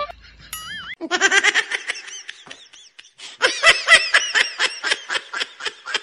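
Laughter in quick repeated pulses, in two stretches: one about a second in and a louder one from about three and a half seconds on. A short sliding whistle-like tone comes just before the first.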